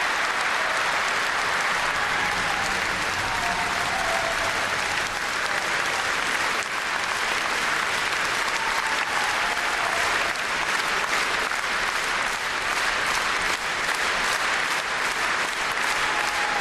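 Large audience applauding steadily, a sustained ovation of many hands clapping.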